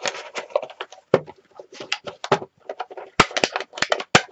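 Rubber bands being stretched and snapped around a folded kraft-cardboard box, with a rapid, irregular run of clicks, taps and rustles as the cardboard is handled.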